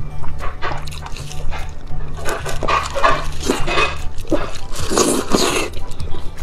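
Wet chewing, sucking and slurping on saucy braised large intestines, with the loudest slurp about five seconds in, over background music with a steady low bass line.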